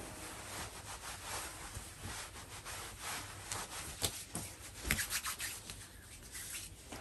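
Hands rubbing face cream into skin, a soft continuous rustling swish with a few light taps near the middle, ending with the hands rubbing the leftover cream in together.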